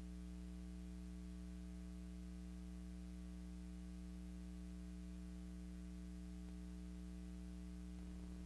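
Steady electrical mains hum over a low hiss, with no other sound: the empty soundtrack of a silent film transfer.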